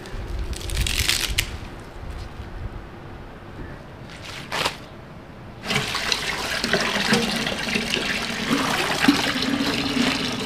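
A few brief rustles as spinach leaves and stems are handled. About halfway in, a kitchen tap starts running steadily into a plastic tub while the spinach is washed under it.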